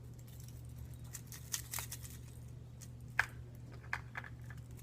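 A few scattered light clicks and taps of hard plastic fishing lures being handled, the sharpest a little after three seconds, over a steady low hum.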